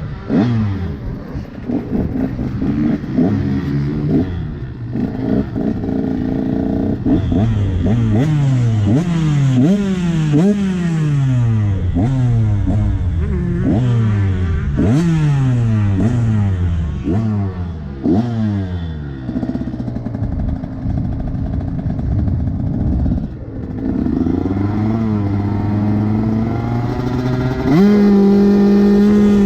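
Motocross bike engine on the track, its revs jumping up sharply and falling away again about a dozen times in quick succession as the throttle is worked on and off. After that the note runs steadier for a few seconds, then climbs to a louder, held high note near the end.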